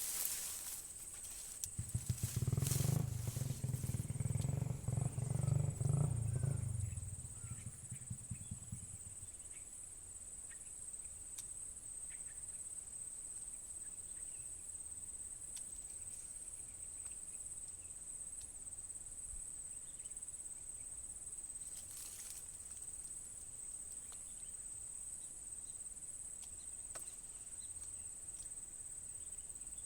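Steady high-pitched insect chorus, like crickets, with a loud low rumble lasting about six seconds near the start.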